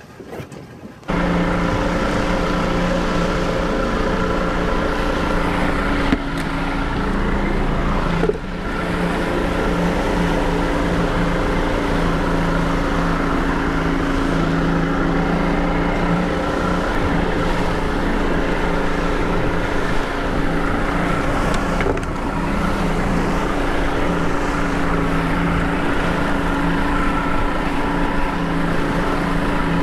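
Boat engine running steadily at trolling speed, a constant droning hum over the rush of wake water and wind, starting about a second in.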